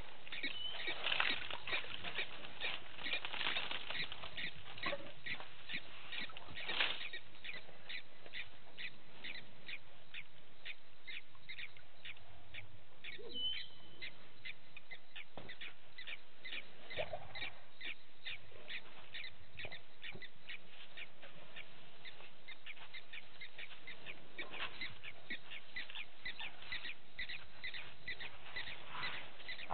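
Night chorus of a small calling animal, a short clicking call repeated regularly about twice a second. A few louder, irregular sounds come in the first seven seconds, and a couple of brief gliding calls around the middle.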